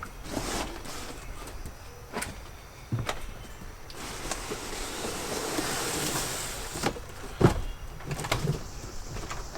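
Large cardboard shipping box being opened and handled: scattered knocks and clicks, a scraping, sliding stretch of about three seconds in the middle, and one sharp knock, the loudest, a little after that.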